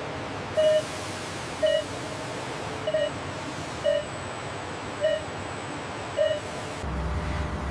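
Electronic warning beeper on sawmill machinery sounding a short, steady-pitched beep about once a second over a constant machine hum; a low rumble starts near the end.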